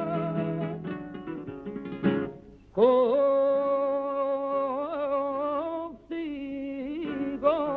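Flamenco song with acoustic guitar. The guitar strums at first; then, about three seconds in, a singer holds one long wavering note, and a shorter sung phrase follows near the end.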